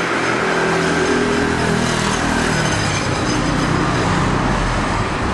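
Steady vehicle noise: a running engine's hum under a wide, even rushing noise.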